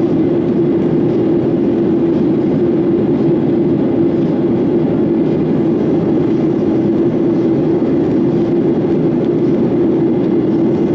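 Steady cabin noise of a Boeing 737-900ER in the climb: its CFM56-7B jet engines and the airflow make an even rushing drone with a constant low hum.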